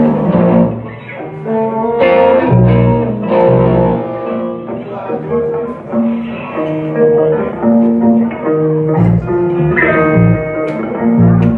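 Live band playing a song, with guitar to the fore over a line of changing low notes.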